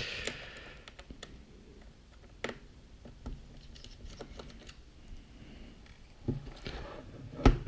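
Scattered light clicks and ticks of a small screwdriver and tiny screws being worked out of an Acer Aspire E1-531 laptop's plastic bottom cover and set down, with a sharp knock near the end.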